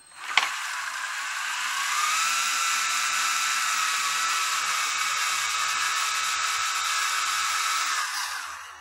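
Small electric RC helicopter's rotor motors whining as they spin up: a click, then the pitch rises over the first second or two, holds steady, and winds down near the end.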